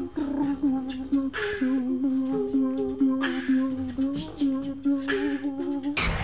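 Several voices humming together in a small room, holding a stepping melodic line, with a breathy hiss about every two seconds. Near the end it cuts abruptly to loud live music and crowd noise.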